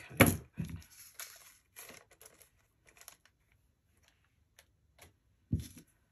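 Small plastic jewellery bag crinkling and rustling as it is handled and pulled open by hand, with a sharp knock on the desk just after the start and a softer one near the end.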